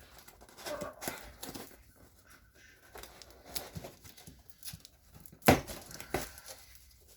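Cardboard box being opened by hand: tearing and crinkling of the packaging, with a sharp knock about five and a half seconds in.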